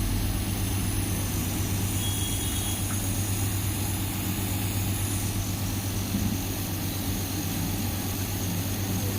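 Compressor nebulizer running with a steady low hum.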